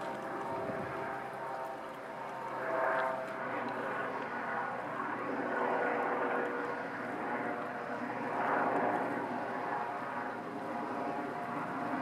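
A steady engine drone with several held tones, swelling louder about three seconds in, again near the middle and once more later on.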